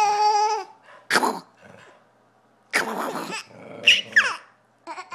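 Dogs barking and growling in rough play, in several short bursts with a few falling yelps, mixed with a toddler's laughing squeals.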